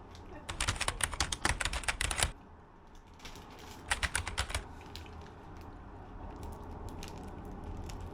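A fast run of sharp clicks, about ten a second, lasting nearly two seconds, then a shorter run of clicks about four seconds in, like typing, over a low steady background.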